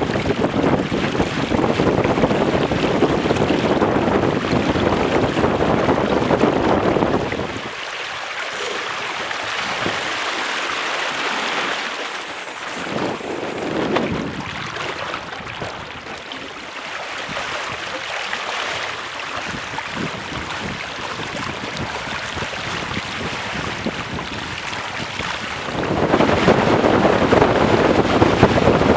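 Wind buffeting a boat-mounted microphone over the rush of water along the hulls of a Weta trimaran under sail. The low wind rumble drops away about eight seconds in, leaving mostly the hiss of water, and comes back strongly about three seconds before the end.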